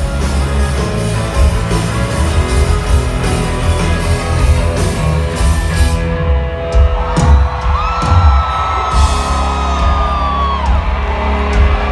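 Live country-rock band playing loudly, heard from the crowd: guitars, bass and drums. A little past the middle the cymbals drop away and a long high held note sounds for a few seconds before falling off.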